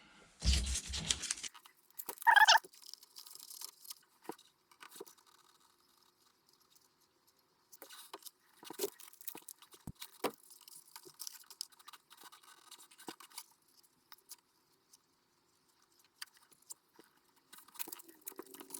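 Close-up handling noises from working on the gauge by hand: a bump in the first second and a short ringing clink about two seconds in, then scattered light scrapes, rustles and small clicks.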